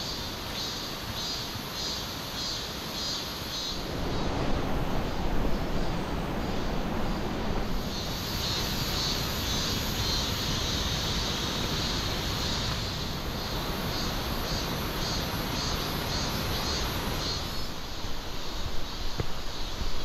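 Forest ambience: a steady rushing noise that grows louder about four seconds in, with a high, rapidly pulsing chorus above it through the middle and a few sharp knocks near the end.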